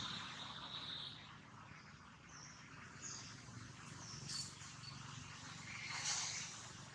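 Faint outdoor background hiss with a few short, high-pitched animal calls scattered through it, one a little louder about six seconds in.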